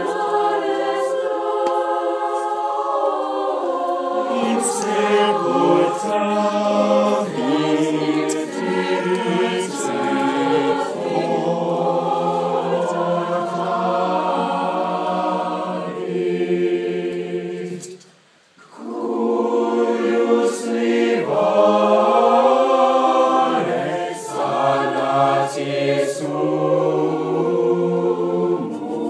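High school chamber choir singing a cappella, several voice parts held in sustained harmony, with a short pause between phrases about two-thirds of the way through.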